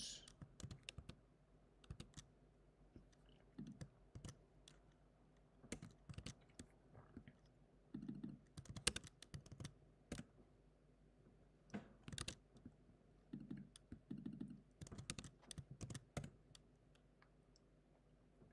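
Computer keyboard keystrokes and clicks, faint and scattered in short irregular clusters with pauses between, as commands are copied and pasted into a terminal and run.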